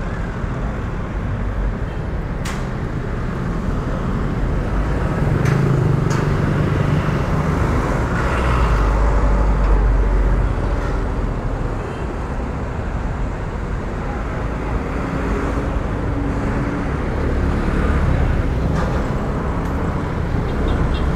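Motorcycle riding through city traffic: a steady mix of its own engine, the surrounding cars and trucks, and a low rumble, with a few short clicks.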